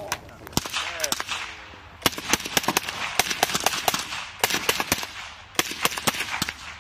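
Military rifles firing on a range in rapid, uneven strings of shots from more than one gun. A few scattered shots come first, then dense firing sets in about two seconds in.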